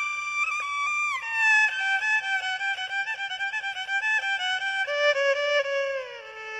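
Background music: a solo melody on a bowed string instrument, sliding down between held notes, with a run of quick short notes in the middle.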